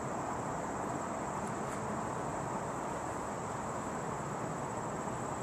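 Steady outdoor background rumble and hiss at an open-air railway platform, with a faint steady high-pitched whine; it stays level, with no clear rise as the distant train comes on.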